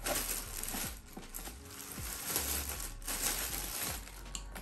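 Clear plastic packaging bag crinkling and rustling in irregular bursts as a new roller skate is pulled out of it.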